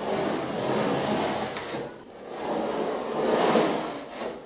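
Sheet of lining paper being worked along a metal straight edge on a wooden pasting table: two long, rough rustling-scraping strokes of about two seconds each.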